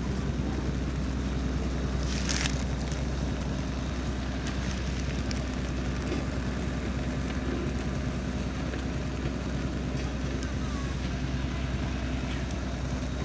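An engine running steadily at an even pitch, with a brief hiss about two seconds in.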